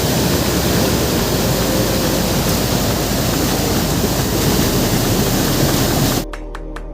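Waterfall's water rushing, a loud steady noise. About six seconds in it cuts off suddenly and music with a ticking beat starts.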